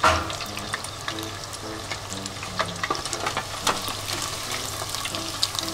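Pieces of karaage (marinated, flour-and-starch-coated chicken) deep-frying in hot oil during the second fry, a steady sizzle full of small crackling pops. A slotted turner moves the pieces in the oil, and the crackle is the coating going crisp as its moisture fries off.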